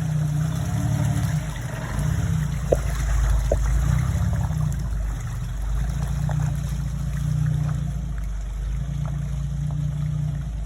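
Jeep engine running at low revs, with water splashing and trickling around it as it wades through a muddy water hole. Two short ticks about three seconds in.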